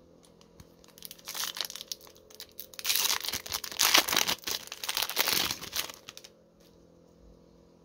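Foil wrapper of a Heroes and Prospects hockey card pack crinkling and tearing as it is opened by hand, starting about a second in and stopping about six seconds in.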